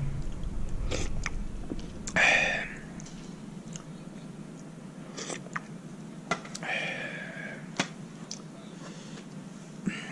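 A person eating soup with a metal spoon from a metal pot: chewing, light clicks of the spoon on the pot, and two louder slurps about 2 s and 7 s in, over a low steady hum.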